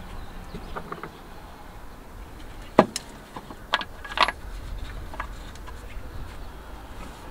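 Scattered clicks and knocks of a trimmed battery tray being fitted into place for a larger 12 V battery, with one sharp knock about three seconds in and a short rattle about a second later.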